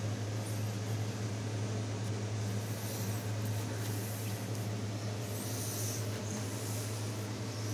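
Steady low room hum, with a few faint scrapes of metal handling as an AR-15 barrel-extension alignment rod is worked back out of the upper receiver.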